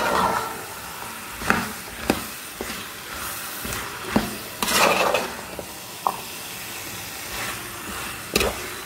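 Metal spoon scraping and stirring gooseberry-and-dates pickle masala in an aluminium pot, over a steady sizzle of the masala cooking in oil. Sharp scrapes come every second or two, with a longer one about five seconds in. The pickle is being cooked down until the gooseberries soften and the liquid reduces.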